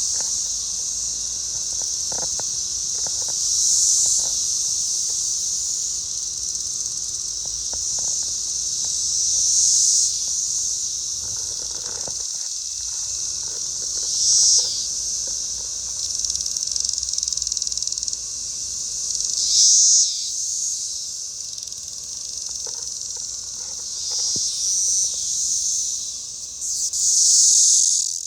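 Chorus of periodical cicadas: a continuous high-pitched drone that swells louder and fades again every few seconds. It is the males' mating call.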